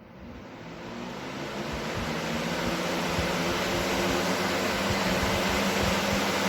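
Hurricane 20-inch box fan starting up: the rush of air and the motor's low hum build over the first two or three seconds, then run steadily.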